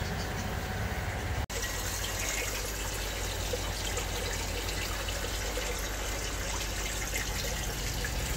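Steady bubbling and splashing of water in an aquarium, from its aeration bubble stream, with a brief dropout about a second and a half in.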